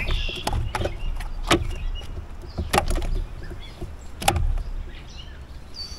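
A few scattered sharp knocks and clicks, about five over six seconds, over a steady low rumble.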